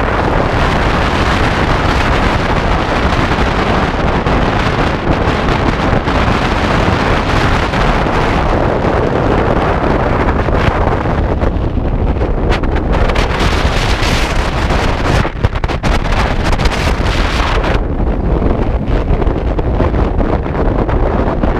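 Heavy wind noise on the microphone of a camera mounted on the outside of a moving car: a loud, steady rush that swells and eases in gusts, somewhat duller for the last few seconds.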